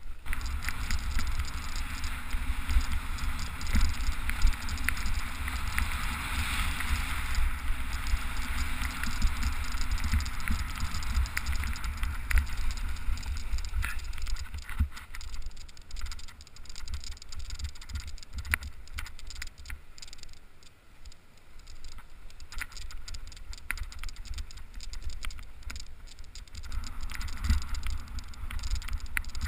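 Wind buffeting an action camera's microphone and the rolling hiss of a Peter Lynn Comp XR kite buggy's wheels over grass, with frequent small knocks and rattles from bumps. The hiss is strongest in the first ten seconds and eases off for a while past the middle.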